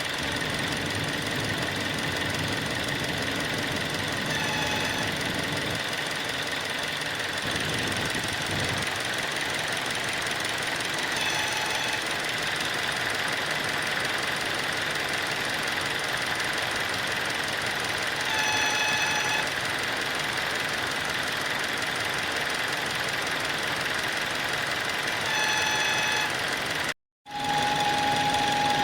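Hyundai Creta 2.0-litre engine running with a steady high whistle from a failed water pump bearing. Short pitched tones come about every seven seconds, and near the end the sound cuts out briefly, then returns with a steadier tone.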